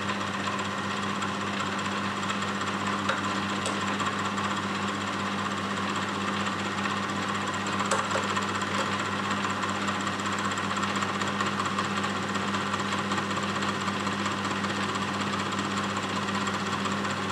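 Milling machine running at about 500 RPM with a tungsten carbide D-bit cutting into a hardened high-carbon file: a steady low motor hum under an even grinding hiss, with a couple of faint ticks.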